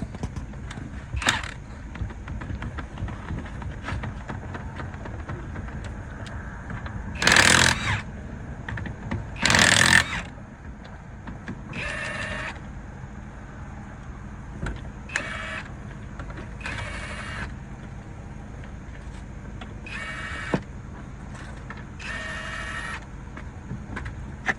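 Impact wrench working the lug nuts on a car wheel in repeated bursts: two long, loud runs about seven and ten seconds in, then five shorter whining bursts a few seconds apart. A steady low hum runs underneath.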